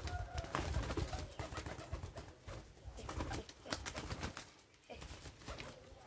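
Racing pigeons cooing, with repeated sharp wing flaps as the birds beat their wings in hand.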